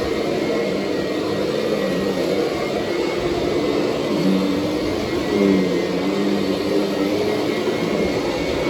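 Kirby upright vacuum cleaner running, its motor tone shifting in pitch now and then as it cleans the bullnose edge of a carpeted stair step.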